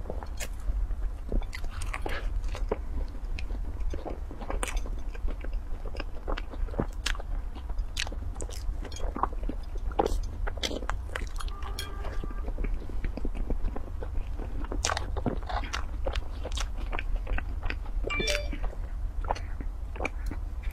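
Close-miked eating sounds: a person biting into and chewing a golden bread bun, with irregular wet mouth clicks and light crackles from the crust. Near the end, a sip of milk through a straw.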